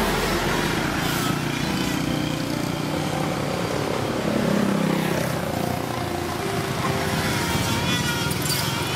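Street traffic, with small motorcycle engines running and passing close by, their pitch shifting up and down.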